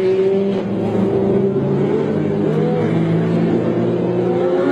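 Engines of GT racing cars driving past, a steady drone whose pitch rises and falls as the cars pass, rising again near the end as one accelerates.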